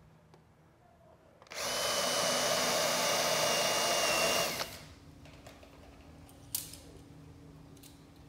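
Cordless drill running for about three seconds against the soft cedar hull plank, a steady whine that drops in pitch as it stops. A few faint clicks and a knock follow.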